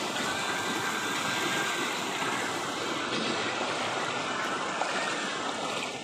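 A shallow rocky stream running over stones, giving a steady hiss of flowing water.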